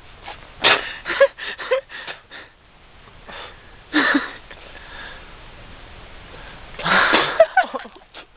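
A man breathing hard through his mouth in sharp, pained gasps and huffs, burned by a Bhut Jolokia (ghost pepper): a quick run of breaths about a second in, another about four seconds in, and a longer, louder one near the end.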